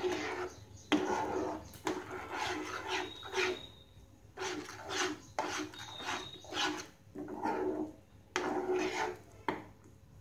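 Spatula scraping around a nonstick frying pan as it stirs thick semolina and pineapple halwa, in repeated strokes with brief pauses. The halwa is kept moving so it does not form lumps while it thickens.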